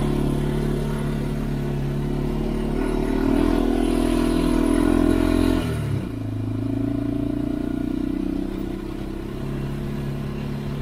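Honda 400EX ATV's single-cylinder four-stroke engine running under way on a dirt trail. It pulls a little harder and louder in the middle, then the revs drop sharply about six seconds in and it runs on at a lower, steady pitch.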